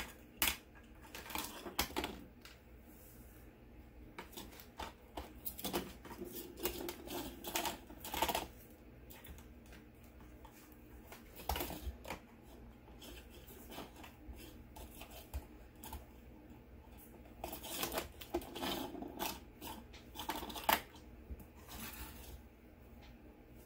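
Scattered small rustles, taps and clicks of planner paper and sticker sheets being handled as stickers are peeled and pressed into place.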